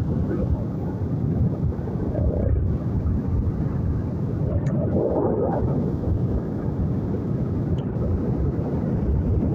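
Motorcycle ridden along a rough concrete road: a steady low rumble of engine and wind buffeting the microphone.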